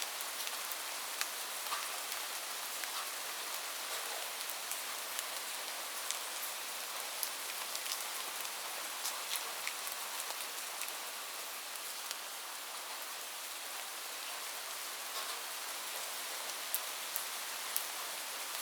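Steady rain on a roof: a dense, even hiss with many sharp individual drop ticks scattered through it.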